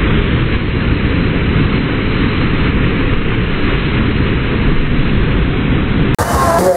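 Steady, muffled rushing of the surf pool's standing wave, heavy in the low end. The sound drops out for a moment about six seconds in.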